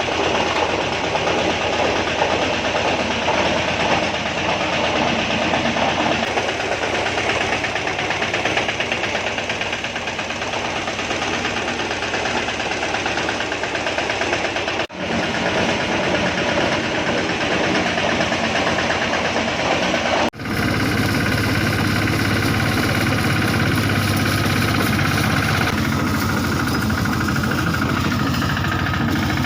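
Single-cylinder Royal Enfield Bullet engine of a homemade mini tractor running steadily with a rapid, even beat, broken by two sudden momentary cuts about halfway and two-thirds through.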